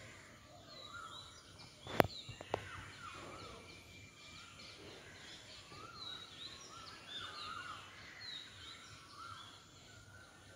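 Several birds chirping and calling, short rising-and-falling notes repeating throughout. A sharp click about two seconds in, the loudest sound here, with a smaller click just after.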